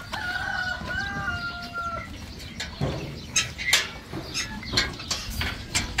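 A rooster crowing once, a stepped call about two seconds long, followed by scattered sharp knocks and clatter.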